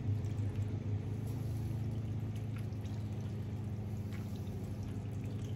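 Pasta and feta-tomato sauce bubbling and sizzling in a pan, with a few light clicks of a utensil, over a steady low hum.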